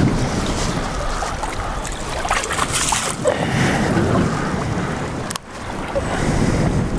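Strong wind rumbling on the microphone over choppy water lapping and splashing against a small boat's hull, with a short break about five and a half seconds in.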